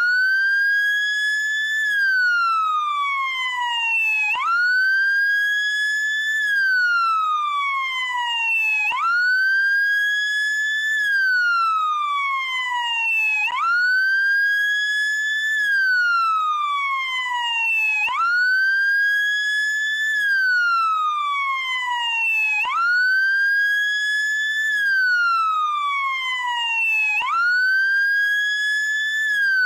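Electronic wail siren of a SAMU ambulance motorcycle (motolância), sweeping up quickly, holding high for about two seconds, then falling slowly. The cycle repeats about every four and a half seconds.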